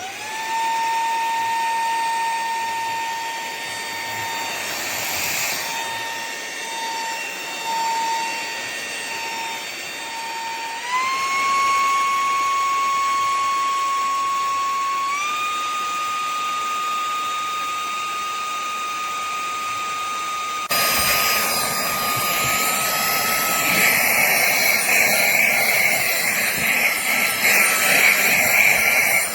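Cordless handheld vacuum cleaner switched on, its motor spinning up to a high, steady whine that steps up in pitch twice. About two-thirds of the way through, a louder, rougher rush of air joins the whine.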